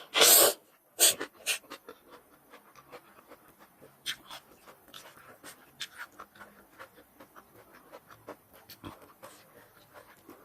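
Close-miked eating sounds of spicy chicken feet being chewed and sucked. Two loud noisy bursts at the start are followed by scattered soft, wet chewing clicks.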